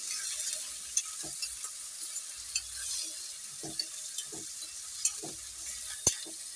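Raw prawns, sliced onions and green chillies sizzling in oil in a kadai while a metal spatula stirs and scrapes through them, with irregular scrapes and clicks. One sharp knock near the end.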